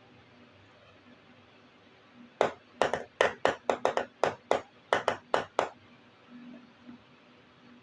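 Small plastic toy pieces being handled, giving a run of about a dozen sharp clicks and taps, three or four a second, after a quiet start.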